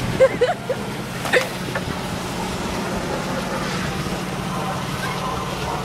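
Tractor engine running steadily at low revs, with a few short shouts and a sharp knock in the first second and a half.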